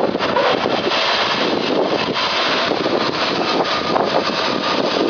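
Burg sawmill running, a steady, loud mechanical noise.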